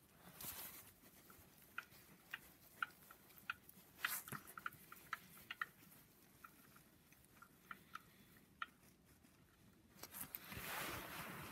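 Faint, irregular metallic ticks of a ratchet wrench working a socket extension on an engine bolt, with soft handling and rubbing noise of the tool, as the old bolt is loosened.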